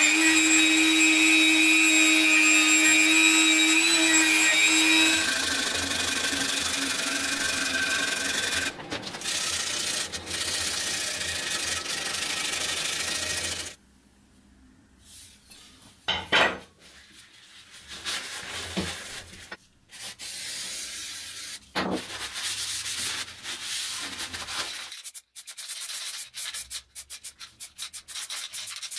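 An electric sanding or grinding tool whining as it works on the steel frame of an old hand saw, its pitch dropping under load about 5 seconds in, then stopping at about 14 seconds. A few knocks and handling sounds follow, and near the end a spray-paint can rattles in quick, even strokes as it is shaken.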